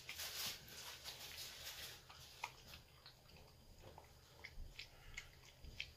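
Small dog eating soaked, mushy food from a plastic bowl: quiet chewing with scattered small clicks.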